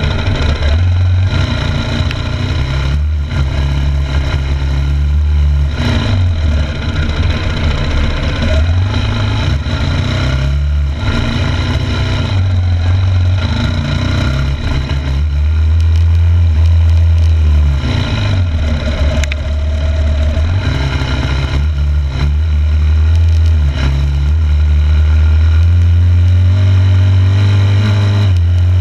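2006 Yamaha YZ250F's single-cylinder four-stroke engine being ridden, revving up and dropping back again and again as the throttle is worked and gears change, loudest near the end.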